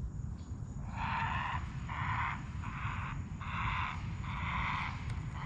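A repeated buzzy animal call: about half-second pulses roughly once a second, starting about a second in, over a steady low background rumble.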